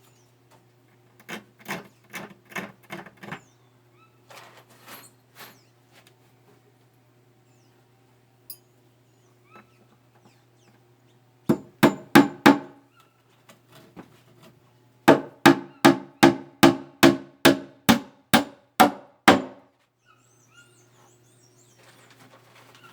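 Hammer blows on wood in several runs of quick, evenly paced strikes, each ringing briefly. The longest run comes near the end, about a dozen strikes at roughly three a second.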